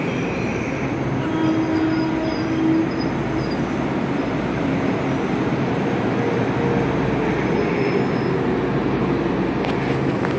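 Metro-North M8 electric multiple-unit train moving past along the platform: a steady noise of the cars and wheels on the rails, with a brief steady tone about one and a half seconds in.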